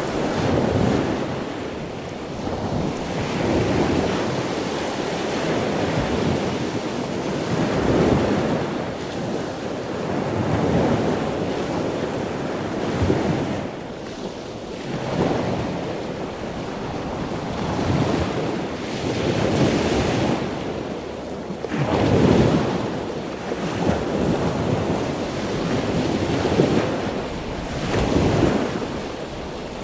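Ocean waves breaking continuously, the surf swelling and falling back every few seconds.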